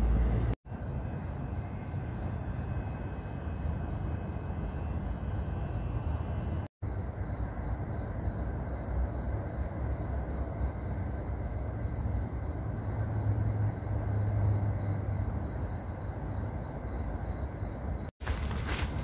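Crickets chirping evenly, about two to three chirps a second, over a steady low outdoor rumble. The sound cuts out briefly three times.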